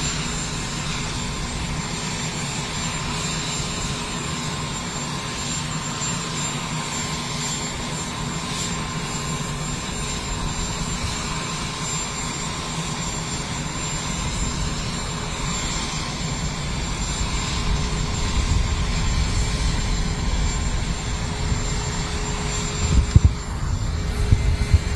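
Steady mechanical drone with a constant hum, its low rumble growing louder toward the end, where a few thumps sound.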